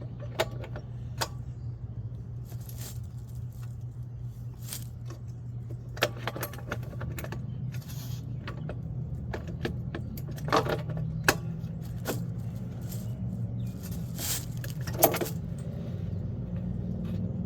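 Scattered metallic clinks and taps of hand tools and metal fittings being handled, the sharpest about 15 seconds in, over a steady low hum.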